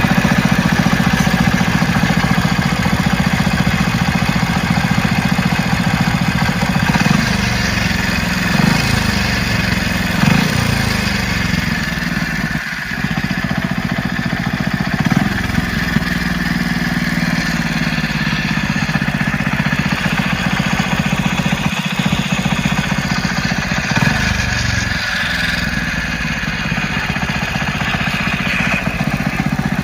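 Hero Splendor Plus's single-cylinder four-stroke engine running at idle, with a few brief changes in engine speed, and carrying an abnormal mechanical noise that the mechanic traces to the crank: a worn crankshaft and crank bearings.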